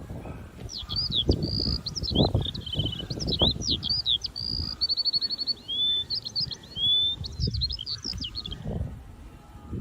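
A small bird singing a varied song of quick whistled notes, slurred phrases and short trills, over a loud low rumbling noise.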